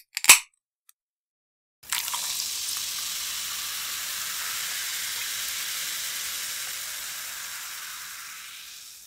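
A short, loud burst of noise just after the start. Then a steady hiss, mostly in the high range, begins about two seconds in and slowly fades away near the end.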